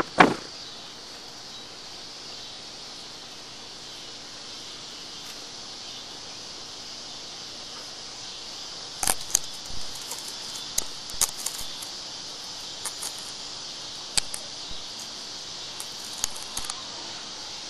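Steady high drone of a cicada chorus. It carries a loud double click at the very start and a scattered run of sharp clicks and knocks from about nine seconds in to near the end: handling noise on the camera as the cat brushes against it.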